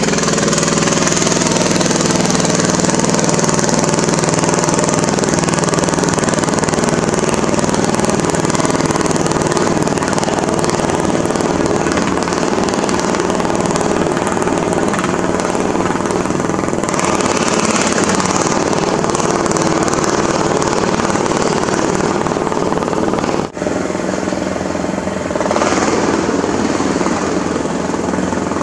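Poulan riding lawn mower's engine running steadily at high throttle as it drives through shallow floodwater. The sound cuts out briefly about three quarters of the way through.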